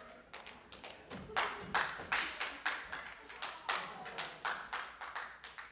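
Sharp percussive hand claps in a rhythmic pattern, a few each second. They start faint and get louder and more even about a second in.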